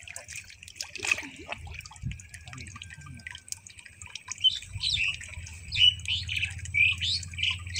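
Small birds chirping in a run of short, quick calls that start about halfway through and are the loudest sound. Beneath them, faint sloshing and dripping of water and mud as a bamboo fish trap is worked into a muddy canal bed.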